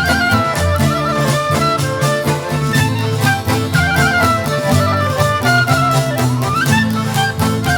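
Albanian folk dance music played by a traditional ensemble: an ornamented, trilling melody over a steady drum beat and a low accompaniment.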